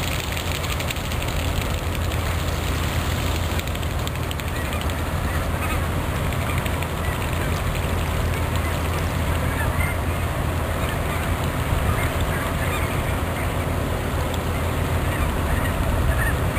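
Steady low drone of a cargo ship's engine carrying across the water, with scattered waterbird calls.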